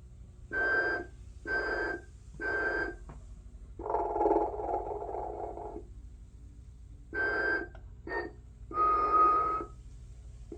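Telco Motionette electronic sleeping Santa playing its recorded snore-and-whistle sound: three short whistling breaths, a longer snore about four seconds in, then more whistles with a longer one near the end. A faint steady low hum runs underneath.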